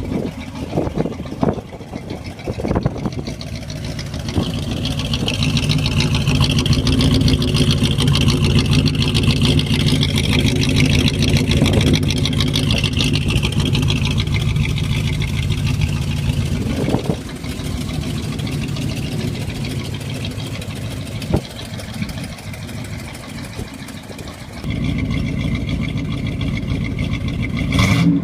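Straight-piped 425 ci V8 of a 1977 Cadillac Coupe de Ville running with a loud, open exhaust. It gets louder over the first several seconds, holds, drops back about two-thirds of the way through, then picks up again near the end.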